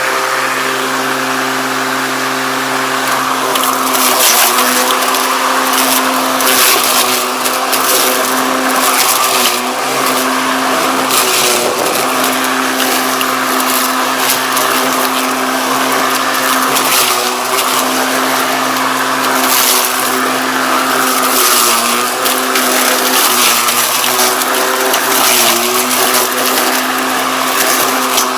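Redback cordless battery-powered lawnmower running: a steady electric motor and blade hum that dips in pitch briefly several times as it mulches beet tops, with repeated bursts of shredding noise from the leaves being chopped.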